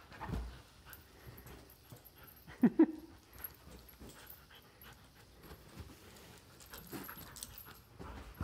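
Black poodle playing with a rope toy on a couch: soft rustling and shuffling throughout, with one short vocal sound from the dog, falling in pitch, a little under three seconds in, and a fainter one near the end.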